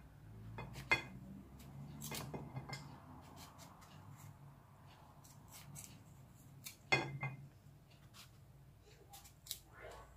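Kitchen knife cutting slices from a peeled mango over a ceramic plate: soft cuts with scattered light clicks and taps as the pieces drop and the blade touches the plate.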